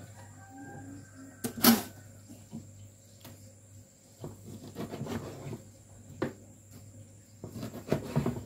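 Kitchen knife cutting boiled papaya shoots on a plastic cutting board: irregular knocks of the blade on the board, the loudest about two seconds in, with quicker runs of cuts around the middle and near the end.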